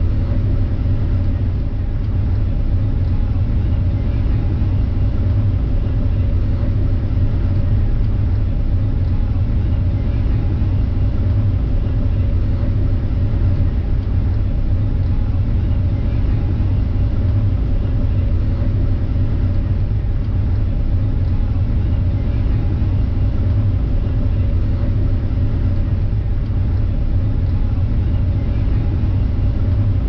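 Claas Lexion 8700 combine harvester running steadily under load while harvesting rice: a constant deep drone of engine and threshing machinery, heard from the cab.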